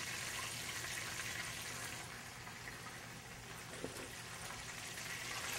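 Chicken frying in hot oil in a skillet: a steady crackling sizzle, with one light tap about four seconds in.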